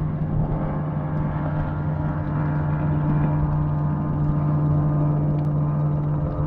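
Electric trolling motor pushing a fishing kayak, a steady, even-pitched hum with no change in speed.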